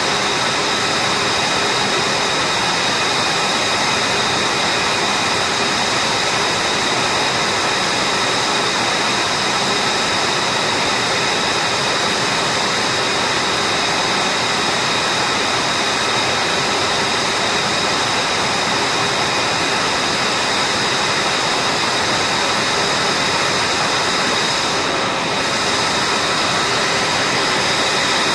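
Lockheed Martin F-22 Raptor's twin Pratt & Whitney F119 turbofans running at ground idle: a steady jet roar with several high, steady whining tones over it.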